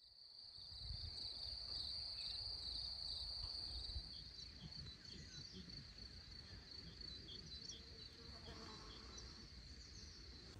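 Faint outdoor meadow ambience: an insect trills steadily at a high pitch, and a bird repeats a short chirp about twice a second through the middle. The trill cuts off abruptly near the end.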